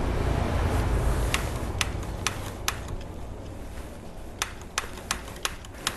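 Repeated sharp clicks, about nine, spaced unevenly, as the gas burner under a wok is being lit. A low rumble dies away over the first couple of seconds.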